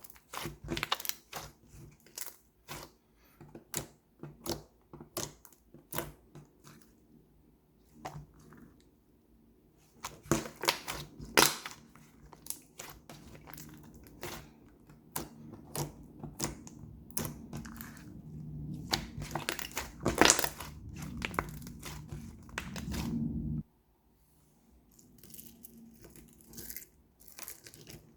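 Slime being squeezed, poked and stretched by hand, giving a stream of irregular crackling pops and squishy clicks, with a few sharper, louder pops along the way.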